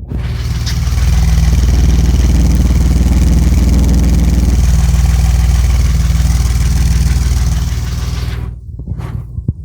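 BMW E34 engine running loud at raised revs for about eight seconds, then falling away, with a few sharp knocks near the end. The owner reports a knock in the engine, louder cold and a little quieter once warm.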